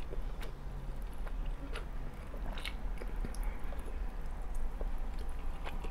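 A person chewing and slurping spaghetti close to the microphone, with small wet mouth clicks scattered irregularly through it.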